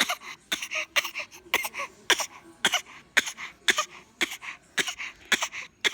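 A small child giving a long run of short, deliberate coughs on request, about two a second, demonstrating his cough.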